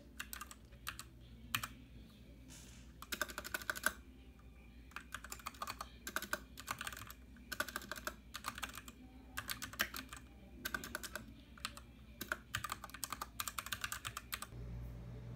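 Typing on a Royal Kludge RK61 mechanical keyboard: quick runs of key clicks in short bursts, with brief pauses between them.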